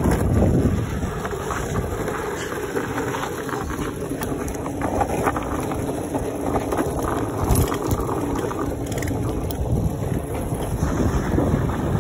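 Small hard wheels of sit-down wooden boards rolling downhill on asphalt, a steady rumble, with wind on the microphone.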